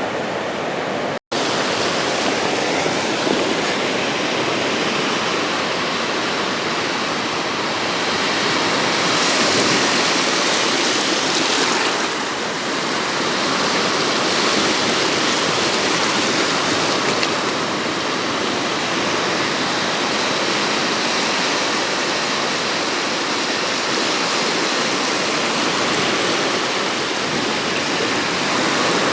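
Sea surf washing onto the beach: a steady rush of wave noise that swells briefly around ten seconds in.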